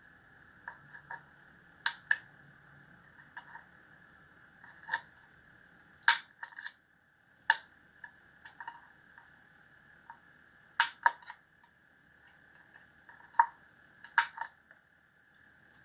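Irregular sharp clicks and knocks of small parts and hand tools being handled while shaping a piece, about a dozen spread unevenly, the loudest about six and eleven seconds in. A faint steady high hum runs underneath.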